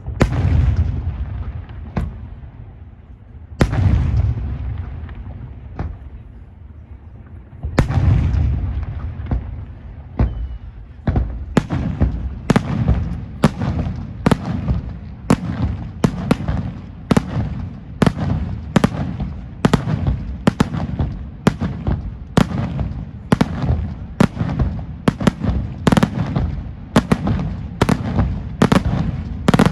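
Aerial fireworks display: three heavy shell bursts about four seconds apart, each followed by a long rolling rumble, then a steady run of sharp bangs about two a second that comes faster near the end.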